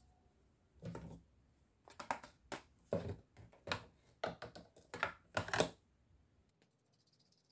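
Plastic squirrel-shaped play-dough extruder toy being handled: a string of about a dozen light plastic clicks and taps as the round die on its front is worked off and set down on the board.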